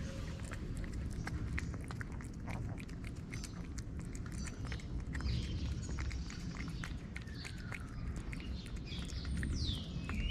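Calico cat chewing and smacking on chunks of wet food, many quick wet clicks close by, over a steady low rumble. Birds chirp in the background from about halfway in.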